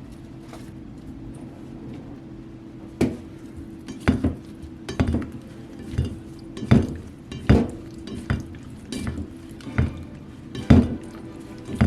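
A kitchen utensil knocking against a bowl or dish in regular strokes, about one every second, starting about three seconds in.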